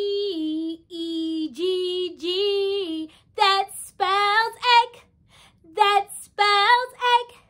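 A woman singing unaccompanied in a high voice: long held notes at first, then shorter, higher sung notes with short gaps between them from about halfway through.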